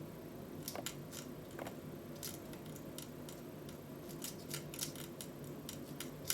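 Small, irregular clicks and ticks of 3D-printed plastic clock parts being handled and fitted together.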